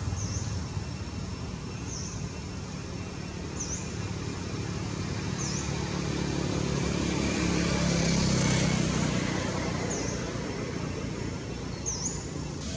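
Low traffic rumble that swells about two-thirds of the way through, like a vehicle passing. Over it, a bird gives a short high chirp every couple of seconds.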